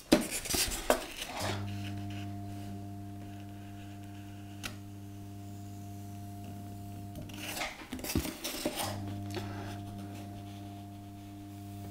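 Proxxon hot wire foam cutter giving a low steady hum while switched on; it stops about seven seconds in and comes back on about a second and a half later. Brief rustling and scraping of XPS foam being handled against the wire fills the gap and the first second or so.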